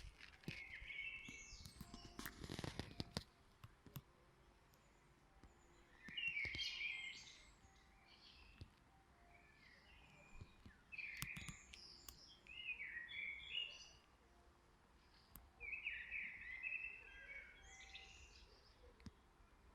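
A songbird singing short, quick warbling phrases, about four of them, each a second or two long with a few seconds' pause between. A brief rustle with clicks comes about two seconds in.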